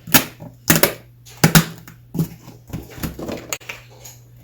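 Handling knocks and taps of a homemade cardboard puzzle box as it is turned and set down: a handful of sharp knocks, the loudest in the first two seconds, over a faint steady hum.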